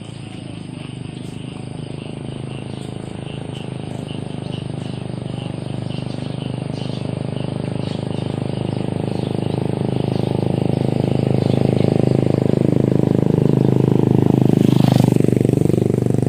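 A motor vehicle engine running and growing steadily louder as it approaches, passing close by about fifteen seconds in.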